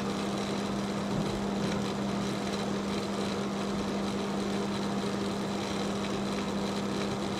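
A steady, even hum with one strong low tone and fainter higher tones, unchanging in level.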